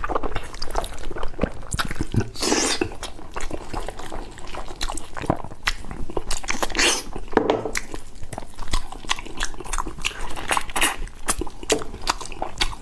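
Close-miked eating of braised pork knuckle: wet chewing and biting into the soft skin and meat, with many short sharp smacking clicks and a few longer noisy bursts.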